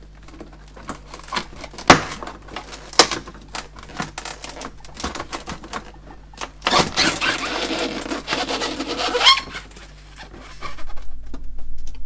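Plastic evaporator cover panel inside a Samsung French door refrigerator being pried out of its clips. Sharp plastic snaps and clicks come first, the loudest about two seconds in. Then a few seconds of scraping and creaking follow as the tight panel is worked free.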